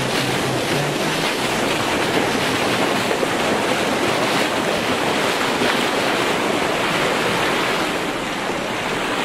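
Steady rush of sea waves with wind on the microphone.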